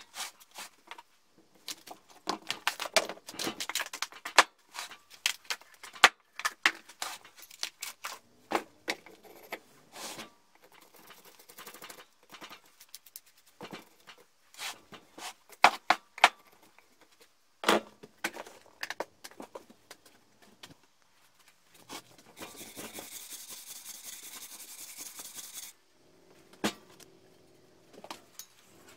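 A small hatchet knocking into and prying the bark off a log: irregular sharp knocks with cracking and tearing as strips of bark split away. In the last third a steady hiss lasts a few seconds.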